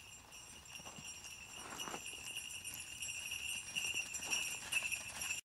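Jingle bells jingling steadily and growing louder, with a few soft hoofbeats underneath; the sound cuts off suddenly near the end.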